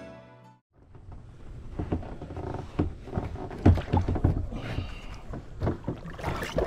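Irregular knocks and thumps on a canoe's hull as someone climbs aboard and settles in, over a low rumble of water and wind.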